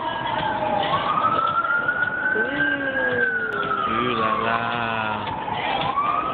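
Emergency vehicle siren wailing, its pitch sliding slowly down, up and down again. A second, lower pitched tone glides downward alongside it for about three seconds in the middle.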